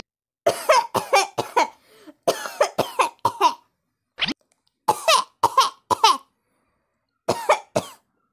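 A person coughing repeatedly in about five bouts of a few hard coughs each, with short pauses between. The coughing is put down to something caught in the throat.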